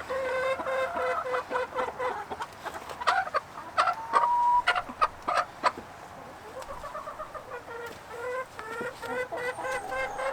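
Backyard hens clucking in low, repeated calls. In the middle comes a run of several sharp knocks, the loudest sounds here.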